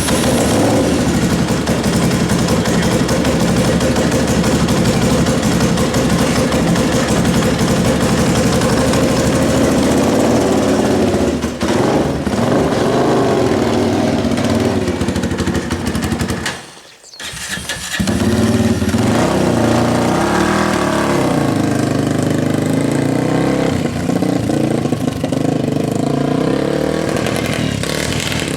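Yamaha 660 Raptor ATV's single-cylinder four-stroke engine running and revving, its pitch rising and falling, with a freshly rebuilt carburetor. The sound cuts out briefly about 17 seconds in, then the engine is heard again.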